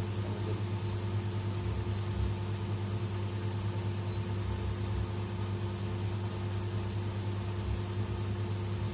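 Steady low machine hum at one unchanging pitch, with a few faint higher tones over it.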